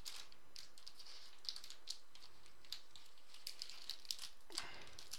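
Foil trading card pack wrapper crinkling faintly, with scattered small crackles as fingers work at tearing it open.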